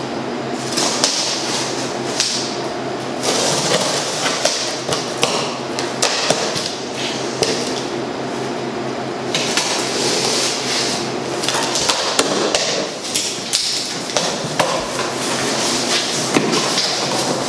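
Cardboard shipping box being opened by hand: packing tape slit and pulled, cardboard scraping and rustling with frequent sharp knocks, and the flaps folded open near the end.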